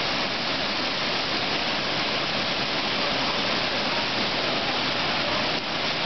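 Waterfall pouring over rock ledges into a plunge pool: a steady rush of falling water.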